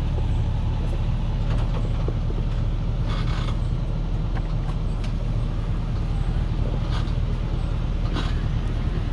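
Heavy truck loaded with acacia logs grinding slowly uphill on a muddy track: a low, steady engine drone, with a few short creaks and squeaks from the load and chassis about three, seven and eight seconds in.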